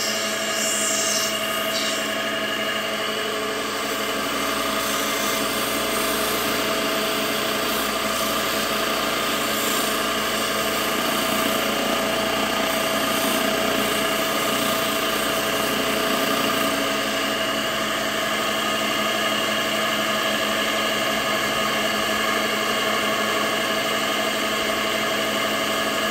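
Lapidary cabbing machine running, its wet grinding wheels spinning with a steady motor whine while a turquoise nugget is held against a wheel and ground.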